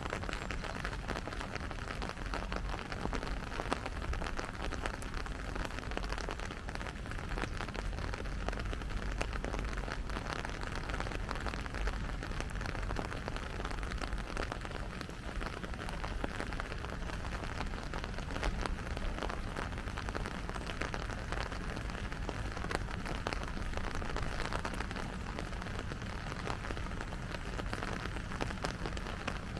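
Steady rain falling, a dense patter of fine drop ticks over an even hiss, with a steady low rumble underneath.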